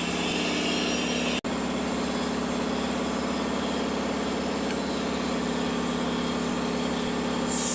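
A motor or engine running at a steady, even pitch, cut by a momentary dropout about a second and a half in, with a short burst of hiss near the end.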